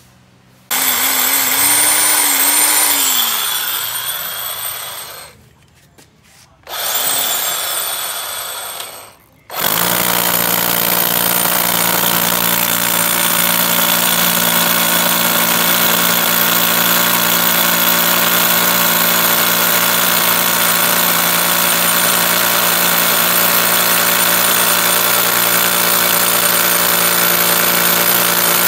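National EZ6813 24 V cordless rotary hammer drill: two short runs whose pitch rises then falls, then from about ten seconds in it hammer-drills steadily into a stone block.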